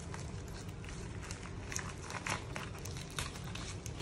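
Plastic padded mailer crinkling and rustling as it is pulled open by hand, with scattered irregular crackles, over a low steady hum.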